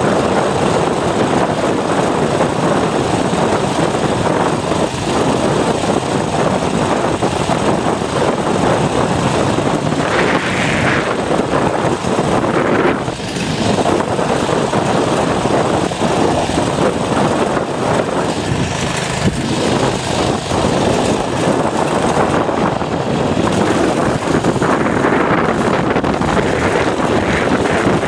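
Mini bike's small single-cylinder engine running steadily under way.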